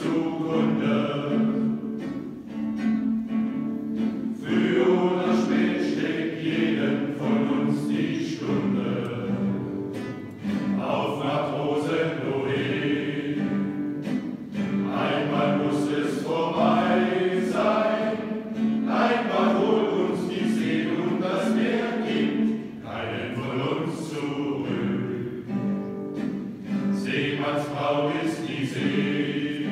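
Men's choir singing, phrase after phrase, with brief breaks between phrases.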